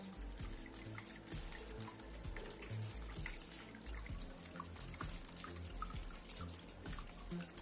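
Background music with a steady low beat, over water dripping and trickling.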